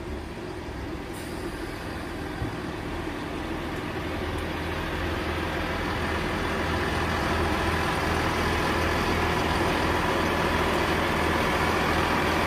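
GWR Networker Turbo diesel multiple unit running past along the platform, its underfloor diesel engines droning under the rumble of wheels on rail. It grows steadily louder as the front nears and draws level, then holds loud as the carriages go by.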